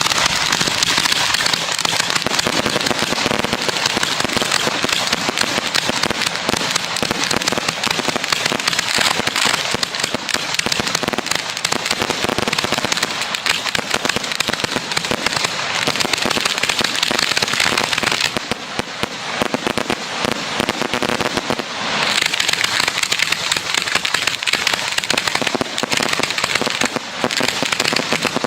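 Professional aerial fireworks display: a dense, continuous barrage of crackling bursts and reports, easing a little for a few seconds about two-thirds of the way through.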